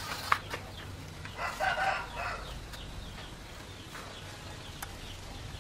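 A rooster crowing once, about a second long, starting just over a second in. It follows a few sharp clicks at the very start.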